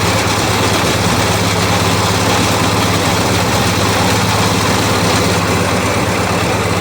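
Snowblower's small four-stroke engine running steadily at about medium throttle with the choke on, freshly started. It now runs because the blocked fuel-bowl vent in its carburetor has been cleared.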